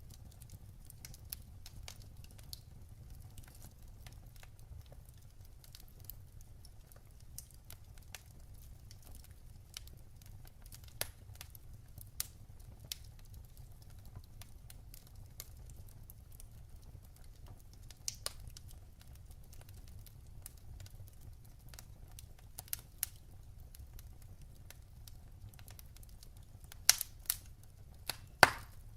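Fire burning in a fireplace and crackling: scattered small pops and snaps over a low steady rumble, with a few louder pops near the end.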